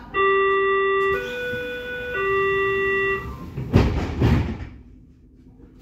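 Door-closing warning of a Berlin S-Bahn class 482 train: a three-note chime, low, higher, then low again, each note held about a second, followed by two loud thuds as the sliding doors shut. The cabin then goes much quieter, with the doors closed before departure.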